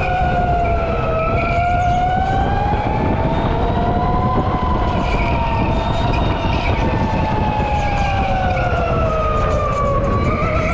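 Electric go-kart motor whining as the kart is driven around an indoor track, its pitch rising and falling with speed, over a steady low rumble.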